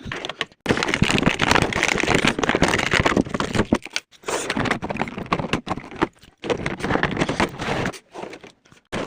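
Packaging of a drone box being rustled and scraped as the drone is taken out, full of crackles and clicks, in several bouts with short pauses between.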